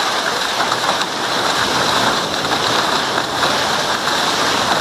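Steady rush and hiss of spray from a moving boat's bow wave.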